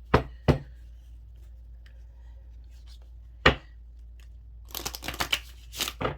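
Sharp taps and clicks of objects handled on a hard surface: two early on, one a few seconds later, then a quick flurry of them near the end.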